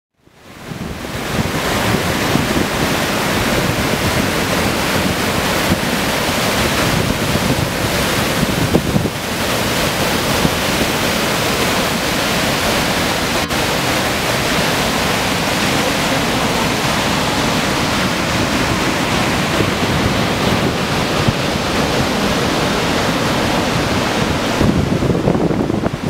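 Large waterfall rushing steadily, with wind buffeting the microphone; it fades in over the first second.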